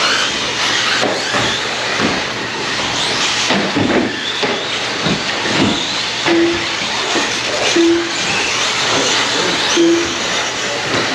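Electric brushless-motor RC truggies and stadium trucks racing on an off-road track: a steady hiss of motors and tyres, broken by scattered knocks of trucks landing or hitting things. Three short, even beeps sound in the second half.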